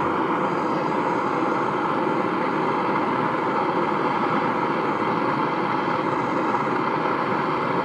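Handheld gas torch burning with a steady hiss, heating a rusted cylinder-head bolt to break it free.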